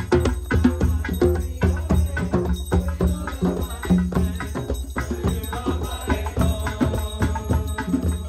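Rapid hand-drum music: djembes and a frame drum struck together in a quick, steady rhythm, over a low held tone.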